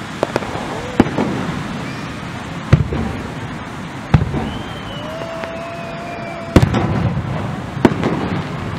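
Aerial firework shells bursting overhead: about six booms at uneven intervals, each with a rumbling tail. A high steady whistle runs for a second or so into the loudest boom, about two-thirds of the way in.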